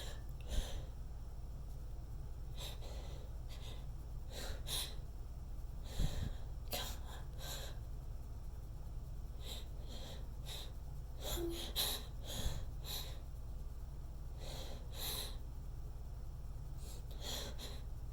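A person's short, breathy gasps and sniffs, coming irregularly every second or two, as a sneeze tries to build from a tickled nose but does not come out. A steady low hum runs underneath.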